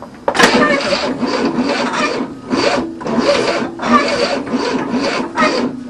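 The new starter motor cranking the 1967 Cadillac's 429 V8 with a rough, rhythmic rasping beat, starting about a third of a second in, without the engine catching. The choke is propped open on an engine the crew thinks is flooded.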